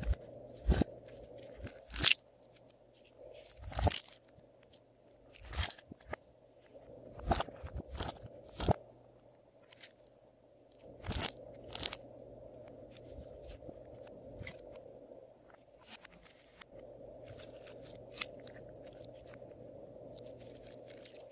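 Glossy slime being squeezed and pulled by hand, letting out sharp pops and crackles of trapped air. About a dozen loud pops come in the first half, then only faint crackling.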